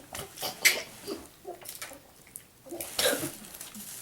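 Capri Sun foil drink pouches being handled and drunk from through their straws: scattered crinkles and clicks with short sucking and slurping noises, a little louder about three seconds in.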